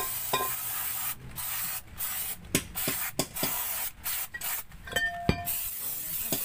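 Aerosol brake cleaner hissing in a series of short spray bursts onto a rear drum brake assembly, cleaning the new brake shoes and backing plate. A short metallic knock comes a little after five seconds.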